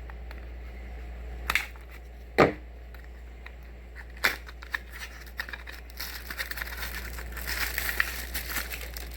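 Plastic packaging being handled and crinkled, with a few sharp clicks and knocks in the first half, the loudest about two and a half seconds in; from about six seconds in the crinkling turns dense and continuous.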